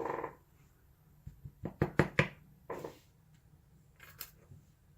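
Sharp little clicks and taps of metal on metal as a lock cylinder is handled and probed with a small tool during disassembly, several close together about two seconds in and a last one near the end.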